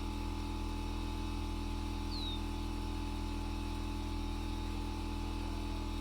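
A steady machine hum that holds level throughout, with one brief high chirp falling in pitch about two seconds in.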